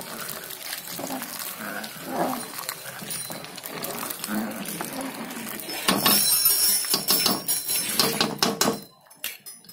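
A metal ladle stirring, scraping and clinking against the side of an aluminium cooking pot, with a louder clatter of metal on metal about six seconds in.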